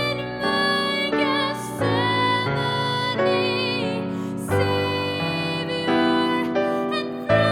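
Slow, gentle instrumental music: a held melody line with vibrato over sustained chords.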